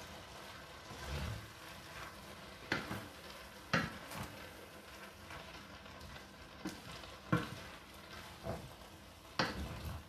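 Wooden spoon stirring spaghetti into a stainless steel pot of simmering sauce, over a steady sizzle, with about six sharp knocks of the spoon against the pot.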